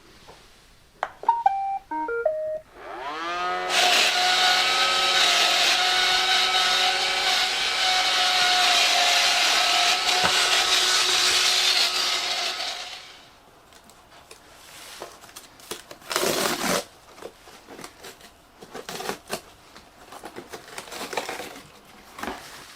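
Roomba 560 robot vacuum playing its short start-up tune of stepped beeps, then its brush and vacuum motors spinning up with a rising whine and running loudly and steadily for about nine seconds before winding down. Scattered clicks and knocks follow.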